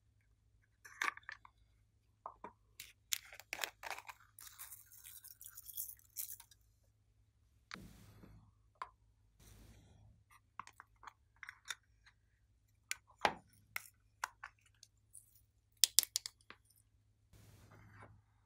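Hands handling a small plastic slime tub and working its contents into a glitter-covered tray: scattered clicks, taps and crackles, with a longer crackly rustle about five seconds in.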